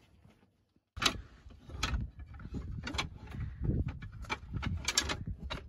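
Slatted wooden roll-top folding camp table being unfolded and set up, its wooden slats and metal-hinged frame clacking and knocking in an irregular string of sharp clicks, starting about a second in.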